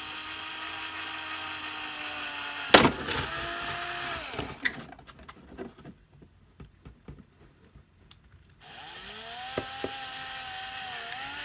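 Small electric drill running in spells, its whine sagging and recovering in pitch as it bores holes into an RC car's plastic body shell. There is a sharp click about three seconds in, and a few seconds in the middle where the drill stops and only light taps are heard.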